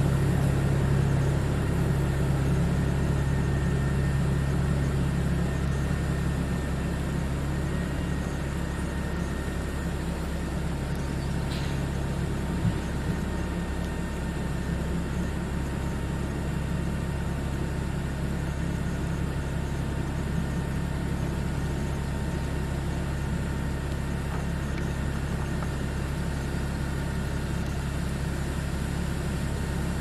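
An engine idling steadily with a low, even hum that eases a little over the first few seconds; one light tick about twelve seconds in.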